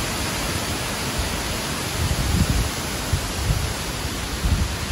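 Strong wind blowing steadily, with gusts buffeting the microphone in low rumbling surges, the strongest near the end.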